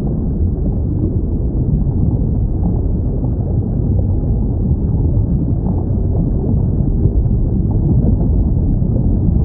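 Underwater recording: a steady, deep, noisy rumble, with faint short sounds from sea life scattered above it.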